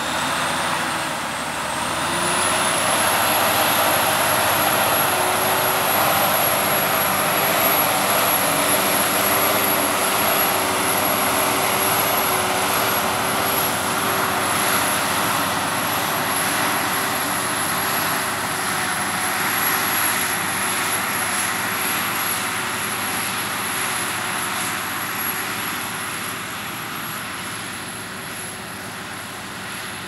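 New Holland T8.330 tractor's six-cylinder diesel engine running steadily under heavy load while pulling a reversible plough through the soil. A high whine rises about two seconds in and then holds, and the sound fades a little near the end.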